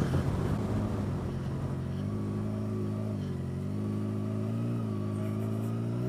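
Motorcycle engine running at low riding speed, its note dipping and rising slightly with small throttle changes. The engine note stands out more clearly about two seconds in, as a rushing noise in the first two seconds fades.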